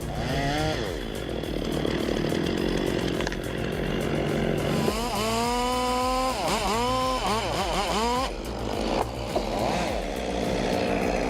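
Chainsaw running at high revs. Its engine note dips and recovers several times, mostly in the second half, as the chain loads up in the cut.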